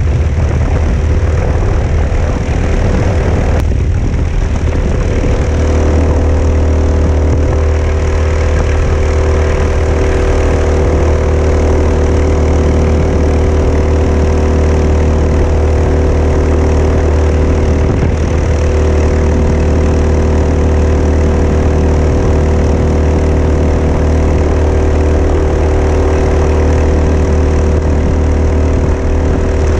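A Mokai motorized kayak's single-cylinder four-stroke engine runs at a steady, constant speed through a prototype ES-kape 2.0 muffler.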